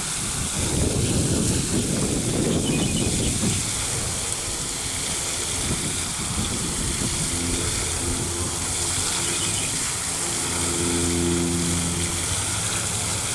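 Outdoor ambience with a steady hiss and a low wind rumble on the microphone for the first few seconds. In the second half a low, steady engine hum comes and goes, then holds for a couple of seconds near the end.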